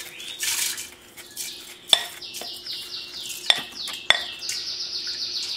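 Rinsed rice pouring from a glass bowl into a stainless steel pot of water, a rushing splash in the first second. It is followed by three sharp clicks as a spatula knocks and scrapes the last grains out of the glass bowl against the pot.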